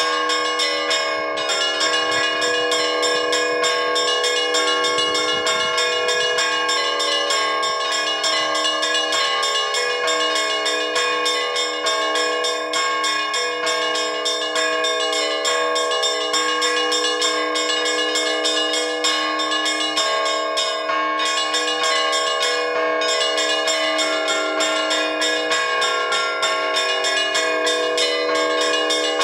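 Orthodox church bells rung by a bell-ringer from the bell tower: rapid, dense strikes of small bells layered over the steady ringing of larger bells, a continuous peal. This is the ring that calls to vespers and the all-night vigil.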